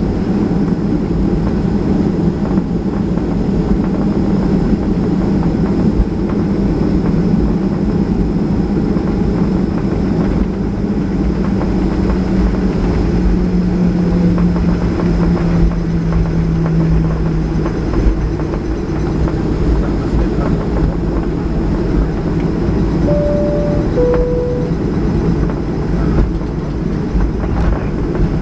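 Boeing 737-800's CFM56 jet engines running under power with a loud, steady rumble during take-off. A hum in the noise slides slightly lower around the middle, and two short chime tones, high then lower, sound near the end.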